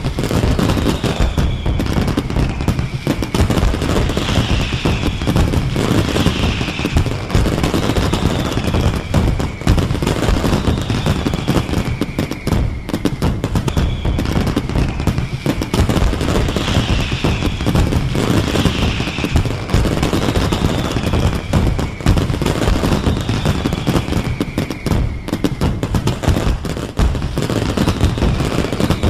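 Fireworks display: a dense, continuous barrage of bangs and crackle, with a falling whistle about every two seconds.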